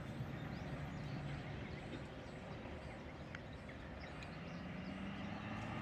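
Distant motor vehicle engine running as a low steady hum, growing a little louder near the end, over steady outdoor background noise.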